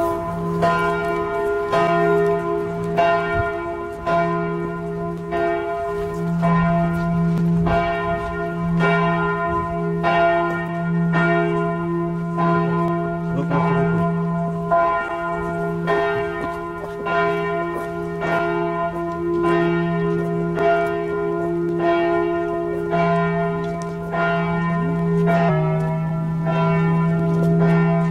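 Church bell tolling at about one stroke a second, each stroke ringing on under the next; the ringing shifts slightly in pitch near the end.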